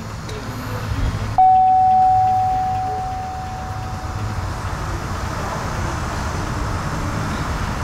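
A single electronic chime about a second and a half in: one clear steady tone that starts suddenly and fades away over about three seconds, over a low steady hum.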